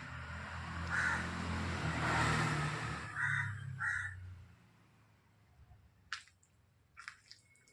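A crow cawing, three short harsh caws about one, three and four seconds in, over a rushing noise that swells and fades during the first three seconds; a few faint clicks follow.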